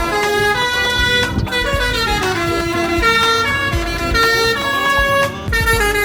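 Bus 'telolet' horn, a multi-trumpet air horn, playing a melody of held notes that step to a new pitch every half second or so, over the low rumble of the bus engine.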